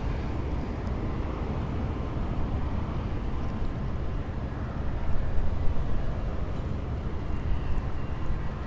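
Wind rumbling on the microphone by open water, with a faint steady engine hum in the background.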